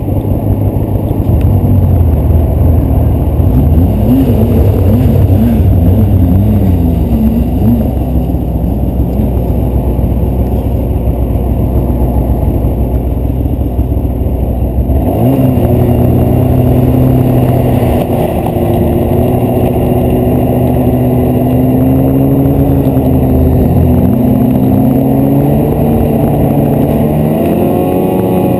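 Snowmobile engine running under way. Its note wavers through the first half, changes abruptly about halfway through to a steadier, higher note, and shifts pitch again near the end.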